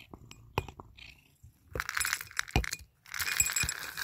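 Dry cat biscuits rattling into a cat's food bowl in two pours, the second longer and louder, after a few light clicks.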